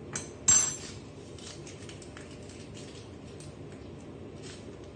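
Metal teaspoon clinking against a small glass while sugar and hot water are measured in: two sharp clinks near the start, the second the loudest and ringing, then light taps and scrapes.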